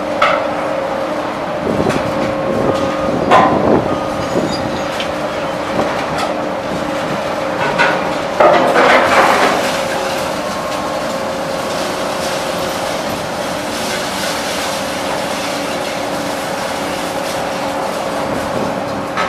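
Liebherr grapple material handlers working a pile of scrap metal: a steady machinery hum, with loose scrap clattering and crashing twice, about three seconds in and again around nine seconds in, as the grapples grab and drop it.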